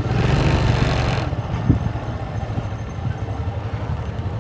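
Kawasaki Fury motorcycle engine running steadily while riding, with a louder rushing noise over it for the first second or so.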